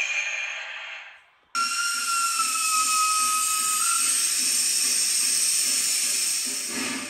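Model steam locomotive's sound: a steady hiss of steam that starts abruptly about a second and a half in, with a whistle blown over it for about two and a half seconds, sagging slightly in pitch.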